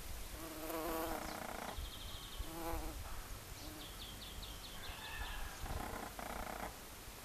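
Common carder bumblebee (Bombus pascuorum) buzzing in flight around a flower, in several bouts that rise and fall in pitch as it hovers and moves between blooms.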